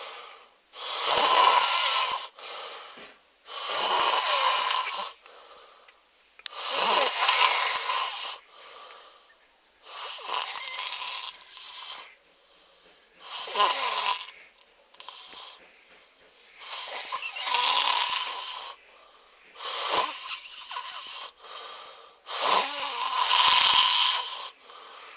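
A person snoring at full blast: about eight loud snores, one roughly every three seconds, each followed by a quieter breath out.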